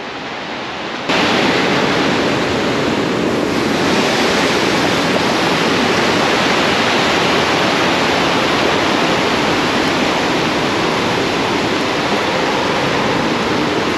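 Langfossen waterfall: a steady, loud rush of falling water, which jumps suddenly louder about a second in and then holds steady.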